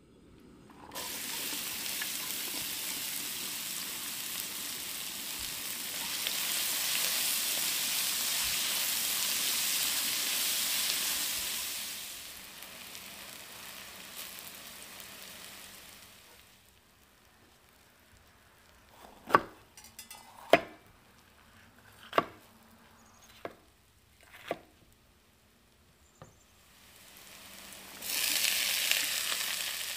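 Diced onion sizzling in hot oil in a stainless wok as it is stirred with a spatula. The sizzle dies down about halfway through, and a few sharp knocks follow in the quiet. Near the end, chopped bell peppers drop into the wok and the sizzling rises again.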